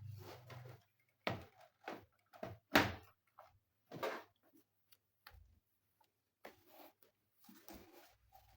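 A series of separate knocks and clunks, the loudest a little under three seconds in, as an all-in-one computer's plastic casing and parts are handled. A low hum runs for the first second.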